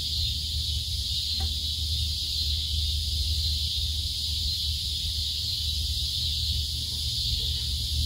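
Steady high-pitched chorus of insects at dusk, an even shrill hiss without breaks, over a steady low rumble.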